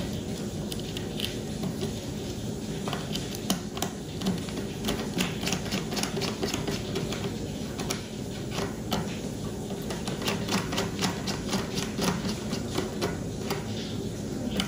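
Rapid, irregular small clicks and ticks of hands fitting wires into a 3D printer control board's screw-terminal block, several a second, over a steady low hum.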